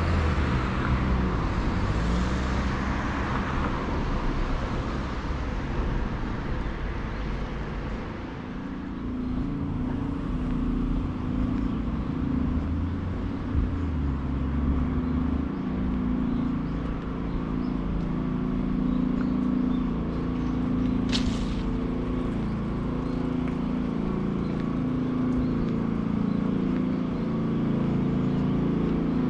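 Steady hum of road traffic, with a brief high squeak about two-thirds of the way through.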